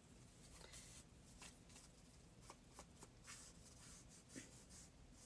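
Faint rustling and soft scraping of a piece of paper being handled and turned, with a few small ticks.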